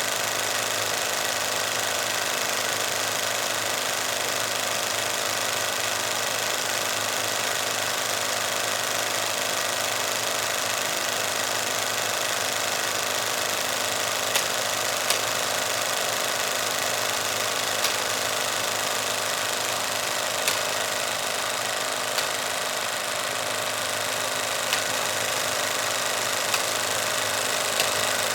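16mm film projector running steadily: an even mechanical whir and rapid clatter of the film transport, with a few sharp irregular clicks in the second half.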